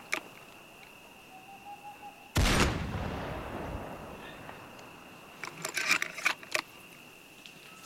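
Sound-effect gunshot from a scoped sniper rifle: one loud, deep shot about two and a half seconds in, with a long echoing tail. Near the end comes a quick run of several sharp cracks, like distant gunfire.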